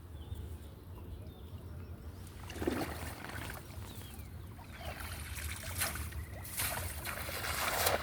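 River water splashing and sloshing in several bursts, the loudest near the end, over a steady low rumble.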